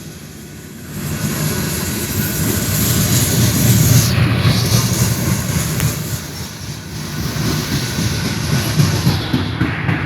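BNSF coal train rolling past close by: a steady, heavy rumble of steel wheels on rail, swelling about a second in.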